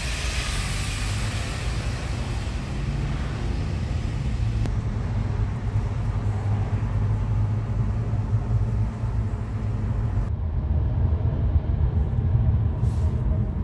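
Car driving at highway speed: wind rushing in through an open side window over a steady low rumble of tyres and engine. About ten seconds in the wind noise drops away, leaving only the low cabin rumble.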